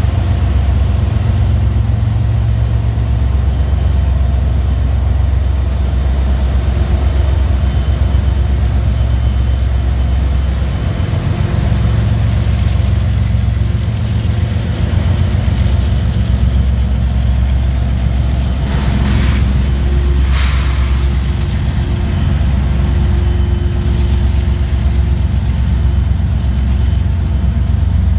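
Union Pacific diesel freight locomotives running with a steady low rumble as the train rolls slowly past. Two brief hisses come about two-thirds of the way through.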